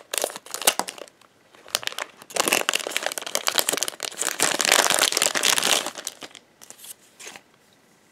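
Scissors snipping the top off a shiny plastic foil blind bag, then the packet crinkling loudly for several seconds as a hand rummages inside it. The crinkling tails off into a few last crackles and stops about a second before the end.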